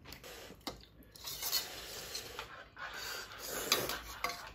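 Spoons and a ladle clinking and scraping against bowls and a metal pot during a meal, with a few sharp clicks, the loudest nearly four seconds in.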